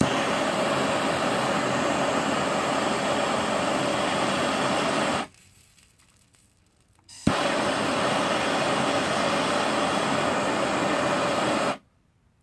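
Handheld torch (a MAP-gas torch head running on propane) burning with a steady hiss while heating a radiator bracket for soldering. It stops about five seconds in, and about two seconds later it is relit with a sharp click and burns steadily again until it stops near the end.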